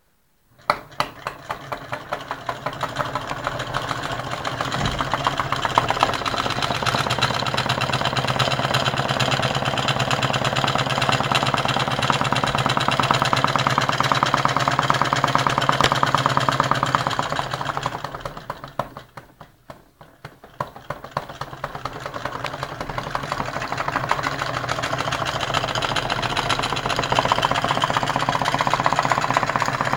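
Homemade alcohol-fired Stirling engine running, a rapid steady mechanical clatter. It starts about half a second in and grows louder over the next few seconds, drops almost to nothing about two-thirds of the way through, then comes back.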